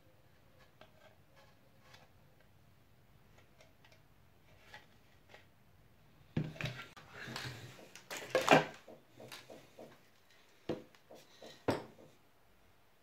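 Hard plastic items knocked and set down on a workbench: faint handling ticks at first, then a clattering run of knocks and rattles about halfway in, loudest a little past the middle, and two sharp single knocks near the end.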